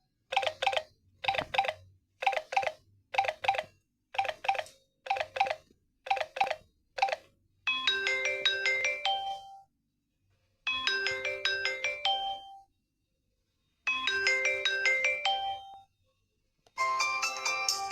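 Samsung Galaxy J5 Prime alarm tones previewed one after another. First comes a short chime figure repeated about eleven times, then a different melodic tone that plays three times with pauses, then another tone starting near the end.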